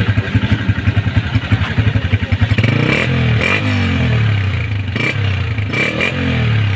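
Unique 125 motorcycle's single-cylinder four-stroke engine idling at the exhaust, then revved twice, about three seconds in and again near the end.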